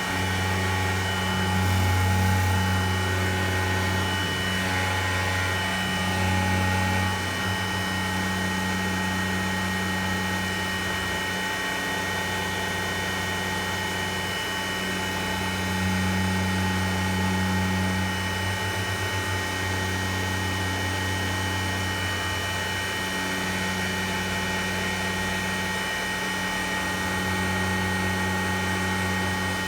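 Grizzly G0704 milling machine converted to CNC, running a 2D contour cut: a steady machine whine over a low drone that swells and dips every few seconds as the cutter moves through the work.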